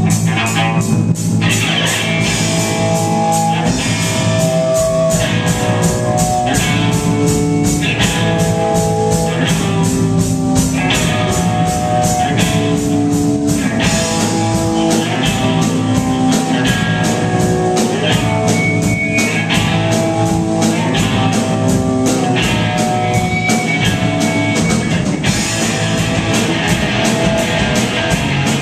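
A rock band playing live, with electric guitar and a drum kit keeping a steady, fast beat under a stepping melody line.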